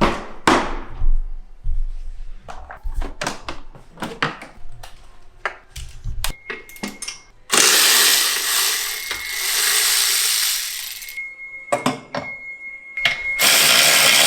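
Clicks and knocks of parts being handled, then a power tool running in two long stretches, the first about halfway through and lasting several seconds, the second starting near the end.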